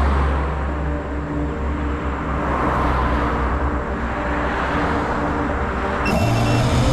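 Road traffic: cars driving past on a road, with a steady low rumble of engines and tyres. About six seconds in a new low hum starts, along with a short run of high beeps.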